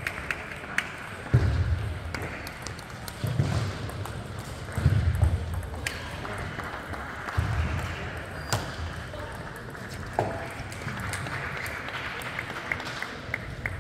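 Table tennis ball clicking sharply off the bats and table, single hits spread through, with a run of light bounces near the end. Dull low thuds and a hum of distant voices in a large hall.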